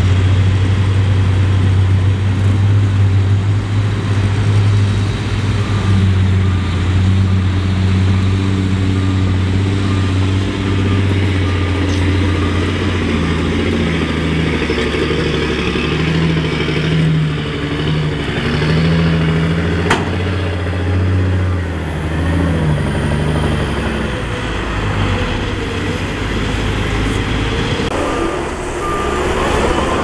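Heavy earthmoving machine's diesel engine running steadily, its pitch shifting up and down through the middle as it works. A short run of beeps like a reversing alarm sounds near the start and again near the end, and there is a sharp click about two-thirds of the way through.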